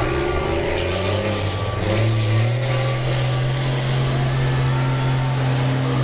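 School bus engines running on a dirt demolition-derby track. One engine revs up about two seconds in and holds at a steady higher pitch.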